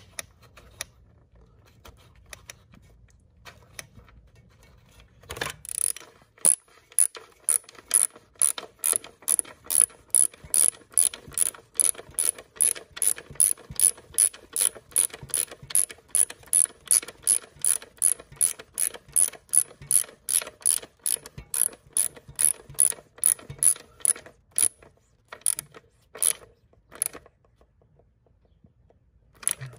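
Ratchet wrench on a long extension clicking as a bolt is run in: a rapid, even run of sharp clicks, about three a second, starting some six seconds in and thinning to a few scattered clicks near the end.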